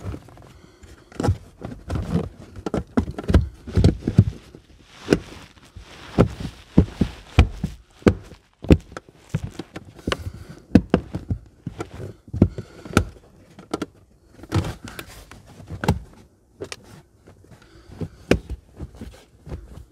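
A large plastic trim cover in a car being knocked and pressed into place by hand: a long run of irregular knocks, thuds and plastic clicks.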